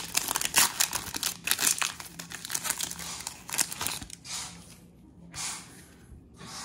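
Foil trading-card pack wrapper being torn open and crinkled by hand: a dense crackle for about four seconds, then softer, sparser rustling near the end.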